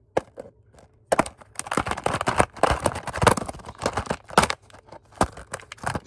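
Thin clear plastic bucket handled with a stone block inside it: a dense run of crackles, crinkles and knocks as the plastic flexes and the block knocks against it, starting about a second in.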